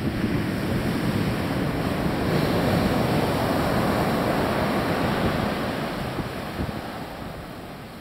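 Ocean surf breaking and washing up a sandy beach, swelling to its loudest midway and then fading as the wave runs out.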